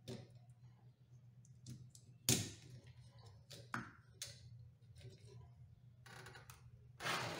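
Plastic clicks and knocks of a Fiat Palio's windscreen wiper blade being unclipped and pulled off the hooked end of its wiper arm. The loudest click comes about two seconds in, and a short scraping rustle follows near the end.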